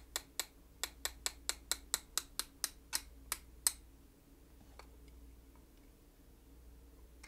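About a dozen rapid light taps, roughly four a second, on a Remington 700 firing pin assembly to knock the stuck cocking piece off the firing pin. The tapping stops a little under four seconds in.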